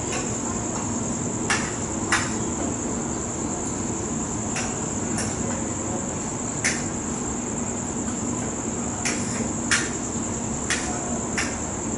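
Night insects singing in a steady high trill, over a low steady hum. About nine short sharp clicks come at irregular intervals and are the loudest sounds.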